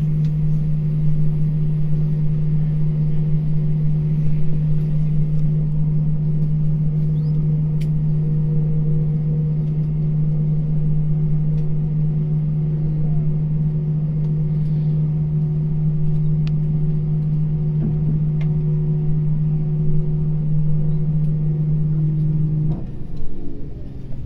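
Airbus A321's IAE V2500 turbofan engines at taxi idle, heard inside the cabin as a steady low drone with a strong hum. Near the end the hum breaks off and its pitch slides down.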